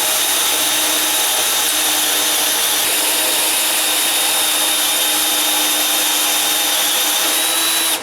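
Electric drill on low speed driving a Rotabroach spot-weld cutter through a spot weld in a steel core support panel: a steady, loud whine with grinding that stops suddenly at the end.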